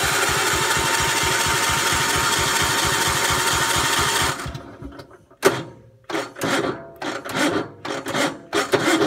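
Electric starter cranking a Gravely 432's Kohler K321 single-cylinder engine with a steady, rhythmic pulse, without it firing. After about four seconds the cranking dies away into short, irregular bursts as the starter struggles, which the owner puts down to the engine having so much compression that the starter can't turn it over.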